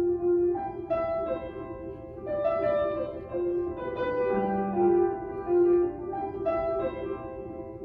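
Grand piano played solo: a classical melody of separate notes over a repeating lower accompaniment.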